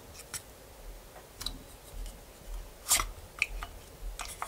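Plastic clicks and taps of a GoPro battery being handled and slotted into the bay of a Telesin plastic battery charger: a string of separate sharp clicks, the loudest about three seconds in.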